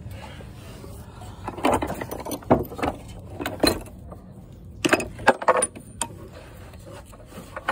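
Chrome steel sockets clinking and knocking in a plastic socket-set case as a hand picks through them: a run of irregular, separate metallic clinks.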